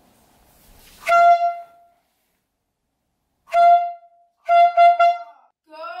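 Handheld canned air horn blasting: one long blast about a second in, another about two seconds later, then three quick toots in a row.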